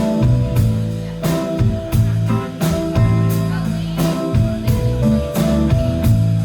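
Indie band playing live: a steady drum beat about every two-thirds of a second under sustained bass and electric guitar lines.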